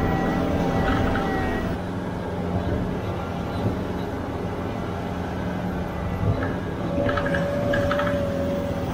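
Heavy equipment engine running steadily, with a steady whine joining in about seven seconds in.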